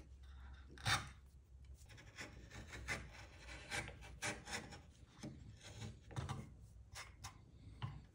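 Freshly sharpened bench chisel paring thin shavings off the end grain of a maple block: a series of short, faint scraping strokes, the first, about a second in, the loudest. The chisel is being tested for sharpness.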